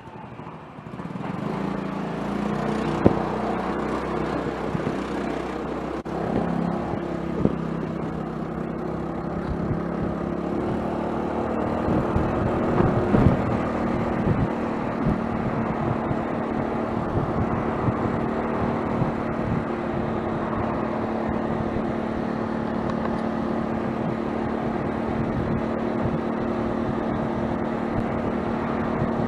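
Honda Fusion 250 cc single-cylinder scooter engine accelerating onto the expressway, its note climbing in the first seconds, then holding a steady drone at cruising speed with road and wind noise. A few sharp knocks come in the first half.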